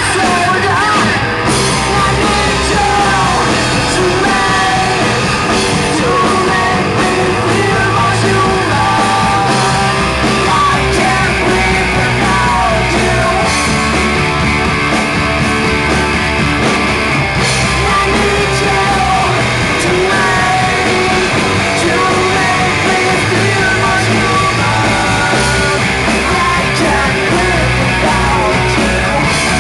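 Live rock band playing a loud, steady song, with singing over the instruments.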